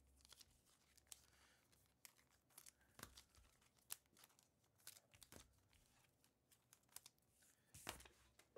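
Faint crinkling and tearing of a foil trading-card pack wrapper, with light clicks and rustles of cards being handled.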